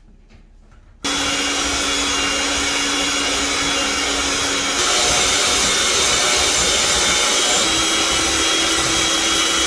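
Electric hand mixer switched on about a second in, its beaters running steadily through butter and sugar in a glass bowl, creaming them; it steps up louder about halfway through.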